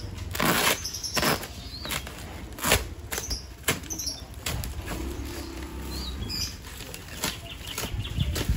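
Orange packing tape being ripped off a woven plastic sack, and the sack itself being torn open, with a series of sharp rips over steady crinkling and rustling of the plastic.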